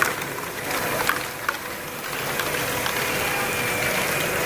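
Lego Great Ball Contraption modules running: a steady whir of Lego motors and gearing, with plastic balls clattering through the modules and a few sharp clicks in the first second and a half.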